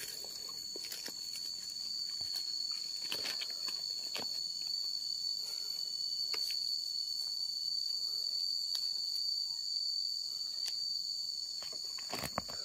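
Steady high-pitched insect drone, one unbroken tone with a fainter higher band above it, over scattered light clicks and rustles of dry leaf litter.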